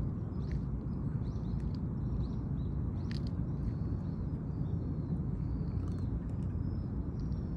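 A steady low outdoor rumble with faint small-bird chirps over it. A few sharp clicks, the loudest about three seconds in, come from a cat crunching dry kibble.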